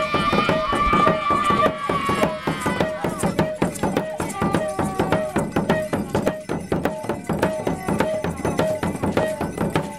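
Mapuche ceremonial music: gourd rattles (wada) and percussion shaken and struck in a steady rhythm, with a short pitched note repeating about twice a second. A held higher tone sounds over it for the first two or three seconds.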